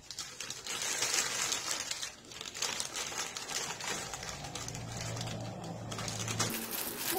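Plastic courier pouch crinkling and rustling as it is handled and cut open with scissors, with many small crackles. A low hum sounds for about two seconds in the second half.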